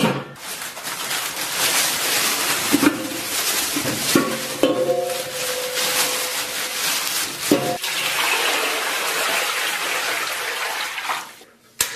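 Tap water running and splashing, with a few knocks of a pot or dish. The flow stops near the end.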